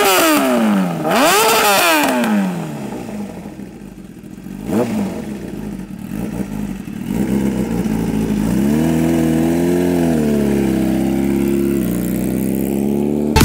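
Kawasaki Ninja ZX-10R's inline-four engine revved hard twice at a standstill, each rev a sharp rise and fall in pitch, with a smaller blip about five seconds in. The bike then pulls away, its engine note rising and holding steady before easing off near the end. Extremely loud.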